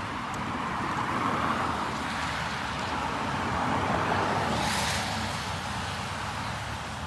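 Road traffic noise with a vehicle going by, getting louder toward the middle and easing off after about five seconds, with a short hiss just before five seconds.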